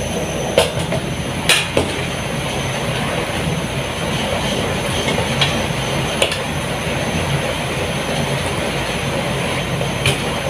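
A steady rushing noise with a low hum, broken by a few short, sharp clinks like metal cookware being knocked.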